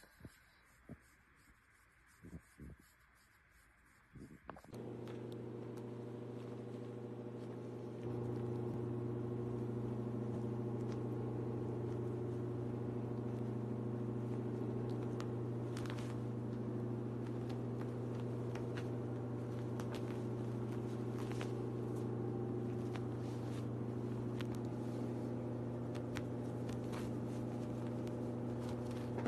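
Steady low machine hum that starts about five seconds in and gets louder a few seconds later, with faint light ticks over it.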